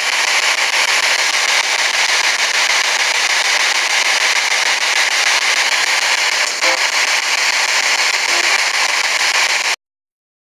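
Spirit box scanning radio frequencies, giving a loud, steady hiss of static that cuts off suddenly near the end.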